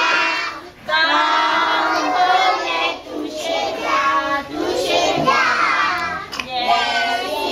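A group of young children singing a song together in chorus, in short phrases with brief breaks between them.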